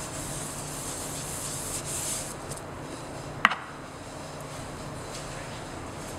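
Sponge rubbing gum arabic across an aluminum lithography plate, gumming the plate to stop the image from darkening: a soft scrubbing that fades out about two seconds in. A single sharp click follows about a second later.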